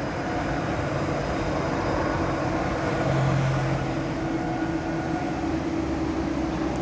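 Toyota Alphard minivan running and creeping slowly forward, with a steady hum. It is being driven forward to compare against the noise it makes when reversing.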